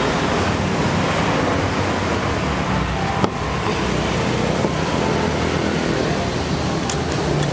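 Steady rumble of a vehicle on the move, with wind buffeting the microphone; a single sharp knock about three seconds in.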